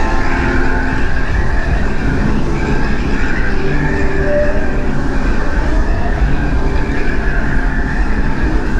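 Disneyland Railroad train running along the track, heard from aboard a passenger car: a steady, loud rumble and rattle of wheels and cars.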